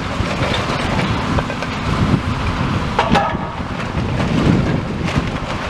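High-reach demolition excavator working a brick building with its grab: a steady engine and machinery rumble with scattered clatter of debris, and one sharper clank with a brief ring about three seconds in. Wind buffets the microphone.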